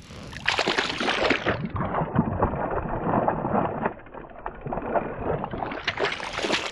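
Water splashing and sloshing in an ice-fishing hole as a hooked trout thrashes at the surface, a loud, crackly, churning noise that starts about half a second in.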